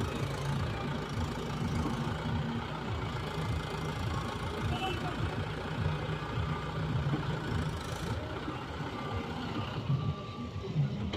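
Heavy diesel engine running steadily, low and rumbling, with the high end dropping away about eight seconds in.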